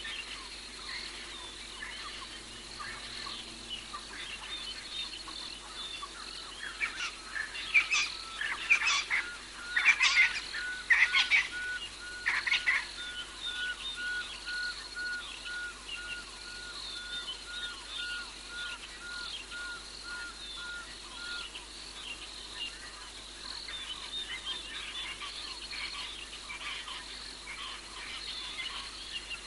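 Insects and frogs chirring and calling steadily. Between about seven and thirteen seconds a bird gives several loud calls. A clear note repeats evenly about twice a second for some twelve seconds, then stops.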